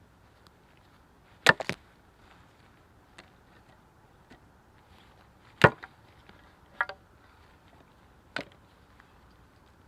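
Sharp, irregular knocks of wood being struck, a few seconds apart: a quick cluster of three about a second and a half in, the loudest single knock a little past the middle, then a double knock and a last single one.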